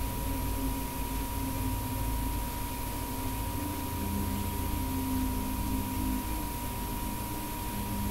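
Steady high-pitched tone held at one pitch, over a low hum and hiss: electrical background noise of the recording.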